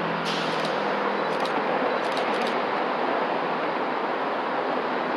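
MBTA HSP-46 diesel locomotive leading a commuter train as it approaches, a steady engine and rolling noise with a faint low hum, and a few short high clicks in the first couple of seconds.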